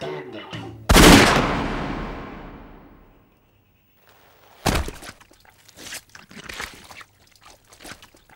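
Guitar music breaks off about a second in with a single loud pistol-shot sound effect that rings out and fades over about two seconds. After a short silence, a sharp smack is followed by scattered smaller splattering sounds.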